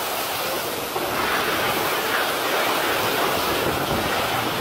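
Tornado wind and heavy rain rushing steadily, with wind buffeting the microphone; it grows a little louder about a second in.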